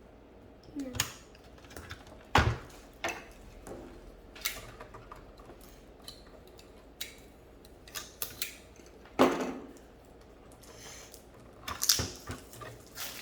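Hard plastic toy pieces being handled, with scattered clicks and clatter and a few sharper knocks.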